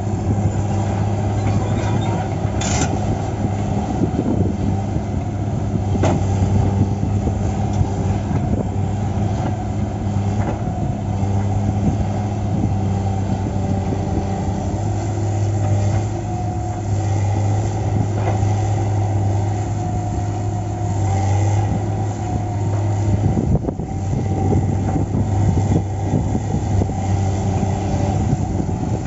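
Diesel engine of a log-loading crane running steadily while loading pine logs onto a truck, with a few sharp knocks about 3 and 6 seconds in.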